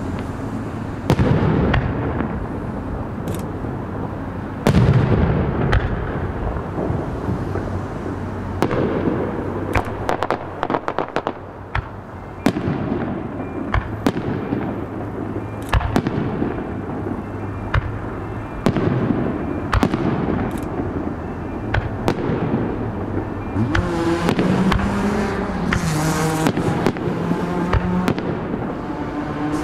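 Aerial fireworks shells bursting one after another: sharp bangs with rumbling echoes, the loudest about a second and five seconds in, and a run of rapid crackling about ten seconds in.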